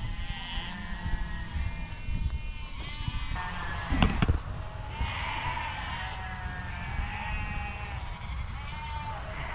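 A flock of sheep bleating, many calls overlapping one another, with a sharp knock about four seconds in.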